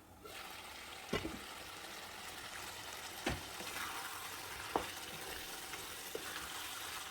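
Food sizzling steadily as it fries in a pan, with a utensil knocking against the pan four times as it is stirred.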